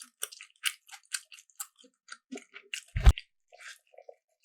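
Close-miked eating: rapid crisp crunching and chewing of food, thinning out after about two seconds, with one heavy low thump about three seconds in.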